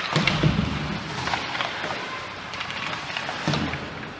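Ice hockey play on the rink: a steady scraping hiss of skates on ice, broken by several sharp knocks of sticks and puck.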